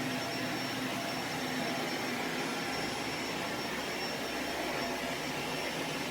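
Upright vacuum cleaner running steadily in its hardwood-floor mode, a quieter setting, with a faint high whine over the rush of its motor.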